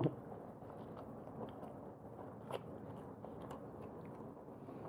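A person chewing food, with scattered small mouth clicks.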